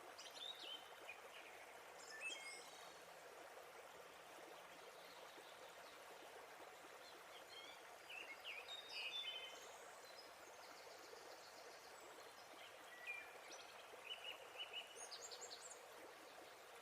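Faint, steady rush of falling water from a waterfall, with birds chirping and trilling in short bursts, about four times.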